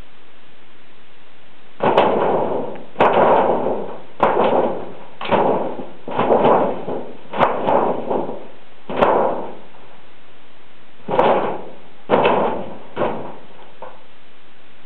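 Thin metal sheet banging and rattling as a dog pounces and paws at it, about a dozen irregular bangs with short ringing tails and a few seconds' pause in the middle.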